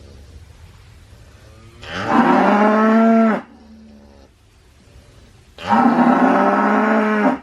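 Cow mooing: two long moos, each about a second and a half, the first about two seconds in and the second near the end.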